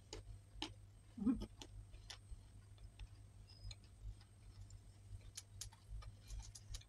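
Close-miked chewing of a chickpea-and-nut sweet: many small mouth clicks and crackles, with one louder mouth sound about a second in, over a faint low hum.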